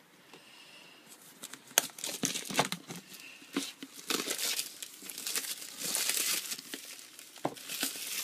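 Plastic wrapping on a new Apple iPad mini box being torn and crinkled off. It starts with a sharp click about two seconds in, followed by uneven crinkling and tearing that grows louder toward the middle and the end.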